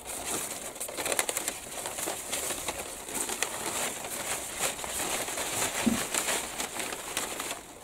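Brown paper bag crinkling and dry lavender stalks rustling as a bunch of cut lavender is pushed down into the bag.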